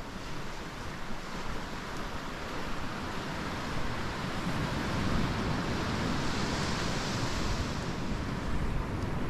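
Ocean surf: a steady rush of waves washing in, growing louder about halfway through.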